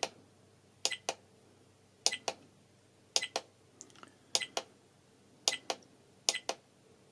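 Plastic navigation button on a Toguard H85 trail camera clicking as it is pressed repeatedly to scroll through the settings menu. Each press gives a pair of sharp clicks, press and release, about once a second.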